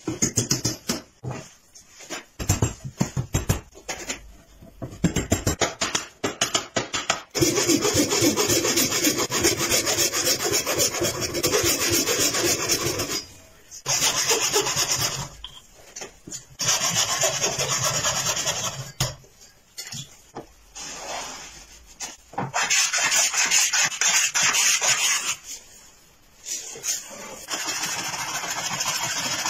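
Woodworking at a bench: a quick run of sharp knocks from hand-tool chisel work for the first several seconds, then long stretches of wood being cut and shaved, in passes of a few seconds each with short pauses between.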